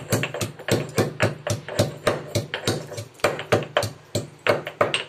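Stone pestle pounding ginger and garlic in a stone mortar: steady, dull knocks at about four strokes a second.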